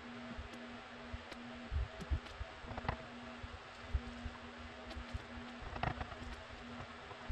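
Quiet handling sounds of wood glue being squeezed from a plastic bottle and spread along hardwood strips for a cutting-board glue-up: scattered soft taps and knocks of bottle and hands on the wood, over a steady low hum.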